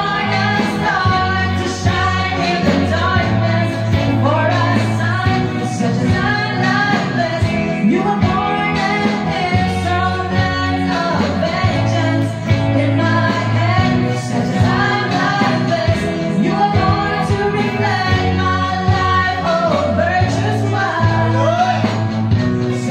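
Two women singing a duet into microphones over amplified instrumental accompaniment, the sung melody continuing without a break.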